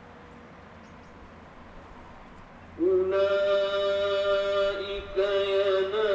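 Faint hiss, then about three seconds in a man's voice enters in melodic Quran recitation (tajwid), holding one long, high, drawn-out note. It breaks briefly just after five seconds, then holds again, with a wavering ornament near the end.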